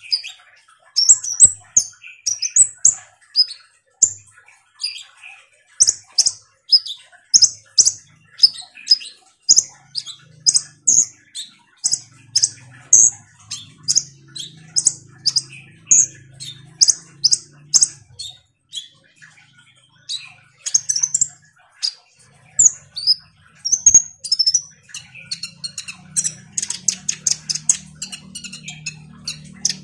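Kolibri ninja sunbird singing: a long run of sharp, high chirps, about two a second, with a short pause after the middle and a faster, denser chatter near the end.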